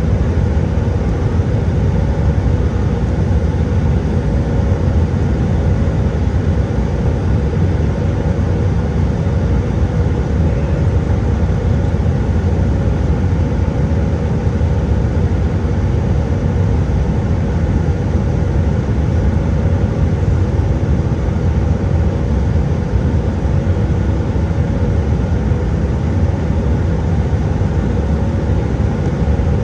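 Steady, deep drone of engine and airflow noise inside the cabin of an Airbus A320-200 in flight, unchanging throughout, with a few faint steady hums above it.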